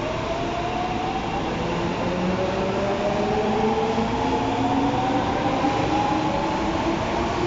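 Osaka Metro 22 series subway train pulling away, its traction motors whining in several tones that rise steadily in pitch as it accelerates, over the rumble of the cars.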